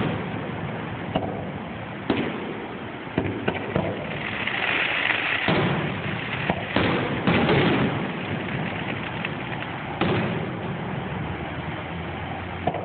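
Aerial fireworks shells bursting, about a dozen sharp bangs at uneven intervals, some in quick succession, with a spell of hissing crackle about five seconds in.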